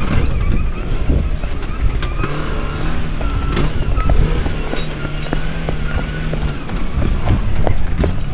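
An off-road truck's engine running hard and steady while the truck jolts over rough ground. Scattered knocks and clatter come from the truck bouncing through the course.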